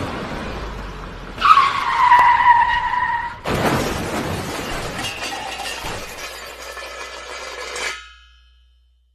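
A vehicle's running noise, then tyres screeching in a skid for about two seconds, then a sudden crash with breaking and shattering debris that clatters on for several seconds before fading out quickly.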